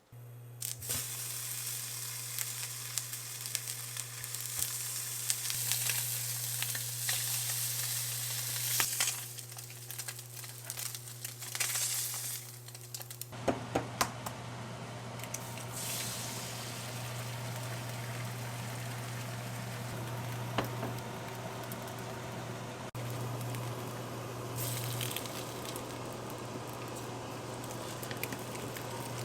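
Food sizzling and frying in a hot pan, with a steady low hum underneath and a few light clicks. The sizzle changes character about halfway through.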